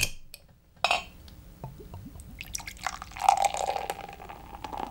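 A beer bottle's cap is levered off with a bottle opener: a sharp click, then a short hiss just under a second in. From about two and a half seconds in, beer is poured from the bottle into a glass mug, splashing and filling as it foams.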